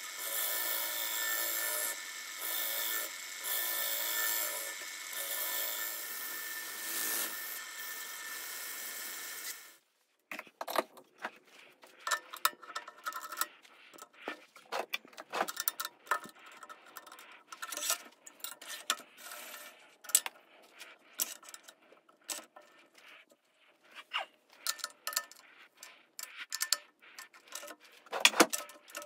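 Wood lathe spinning a live-edge maple bowl with something held against the wood, a steady rubbing scrape. It stops suddenly about ten seconds in, and scattered clicks and scrapes follow.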